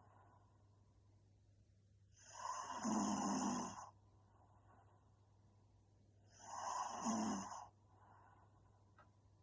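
A young woman snoring in her sleep: two loud snores about four seconds apart, each lasting about a second and a half, with quieter breathing between.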